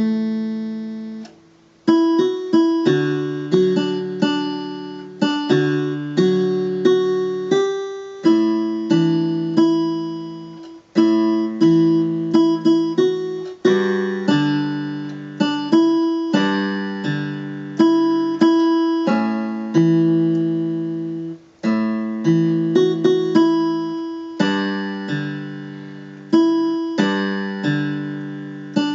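Electronic keyboard on a steel-string guitar voice, played slowly: low left-hand bass notes under a right-hand melody. Each plucked note or chord is struck and then dies away, with a few short pauses between phrases.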